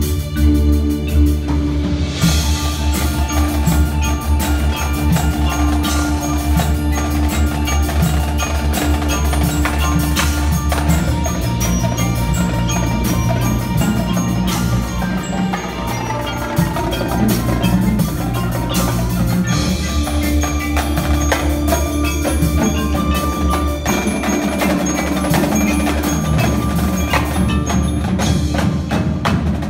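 Indoor percussion ensemble playing: rapid notes on marimbas over marching snare, tenor and bass drums, drum kit and electric bass.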